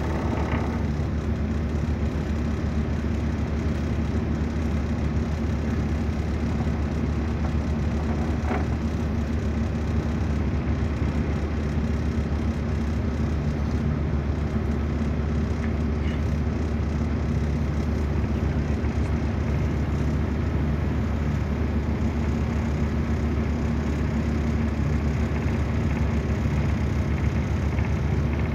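Excursion boat's engine running steadily while cruising, a low, even drone that does not change.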